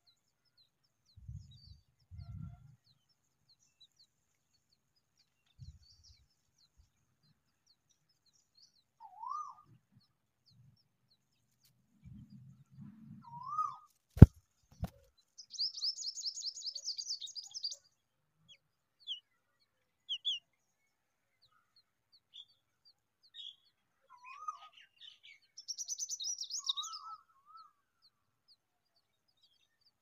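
Familiar chat nestlings begging to be fed, with two bursts of rapid high-pitched chirping, one about halfway through and one near the end, over faint high cheeps throughout. Several short rising calls also come in, and about halfway through there is a single sharp click, the loudest sound.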